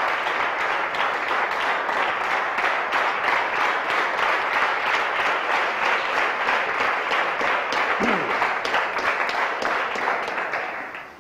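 An audience of a few dozen people applauding steadily, dying away near the end.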